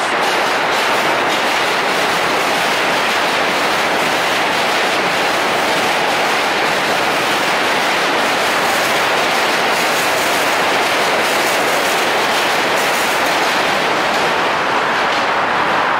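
New York City subway train running on the steel tracks of a suspension bridge: a steady, loud rush of wheel and rail noise, with faint clicking over the rails.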